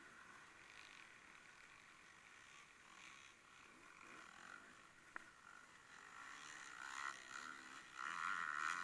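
A racing vehicle's engine running at a distance, faint at first and growing louder over the last few seconds. There is a sharp click about five seconds in.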